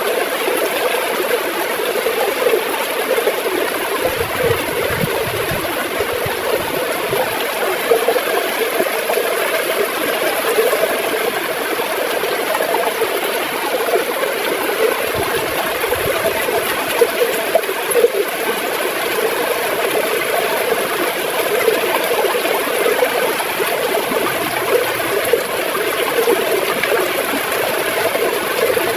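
River water gurgling and flowing in a steady, unbroken rush.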